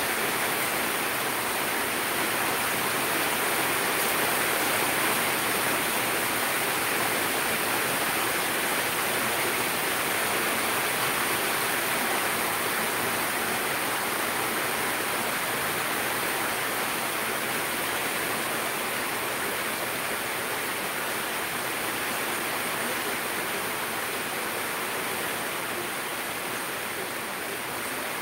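Steady hiss of a gas stove burner on a high flame under a covered aluminium pot that has come to the boil.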